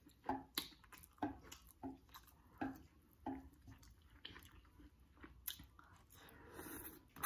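Close-miked chewing of a mouthful of spicy instant fire noodles, short wet mouth clicks about every half second to second. Near the end comes a longer, softer noise as the next forkful of noodles goes into the mouth.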